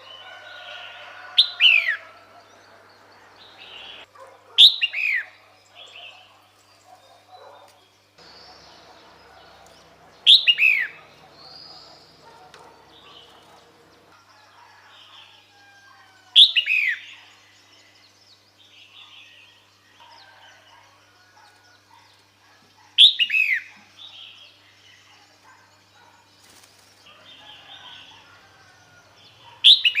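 Female red-whiskered bulbul calling: a short, loud note that slides quickly downward, repeated six times a few seconds apart, with fainter chirps between. It is the female's call, used to draw a male to her.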